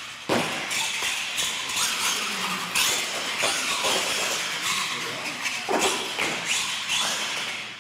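Radio-controlled monster truck running over a hard floor and ramps: motor and tyre noise, with several sharp knocks as it lands or hits the ramps.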